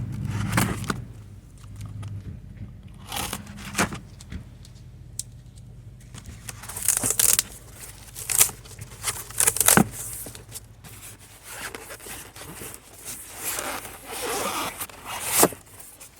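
A cardboard shipping box being opened by hand: tape tearing, and cardboard and packaging scraping and crinkling in irregular bursts, with sharp knocks now and then.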